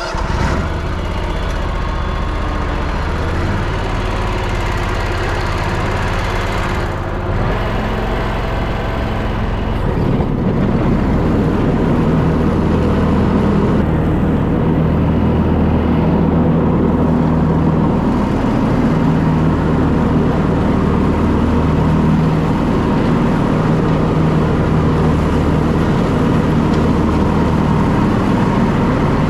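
Zero-turn riding mower's engine running steadily, growing louder and fuller about ten seconds in.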